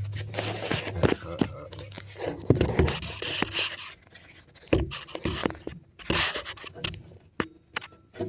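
Metal scraping, clinking and knocking as parts and tools are worked inside a gas furnace, with a low hum that fades away in the first few seconds.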